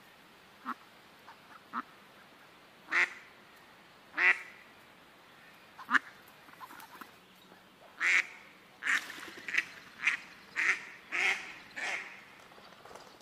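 Ducks quacking: loud single quacks a second or more apart, with softer short calls between them, then a quick run of quacks from about eight seconds in.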